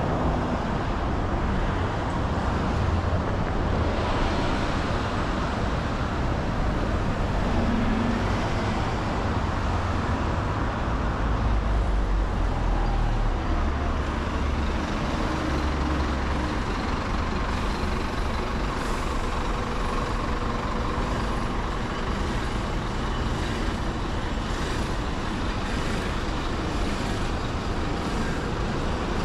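Road traffic on a busy city road: steady engine and tyre noise that includes heavy vehicles, with a deep rumble swelling about halfway through as a large vehicle passes.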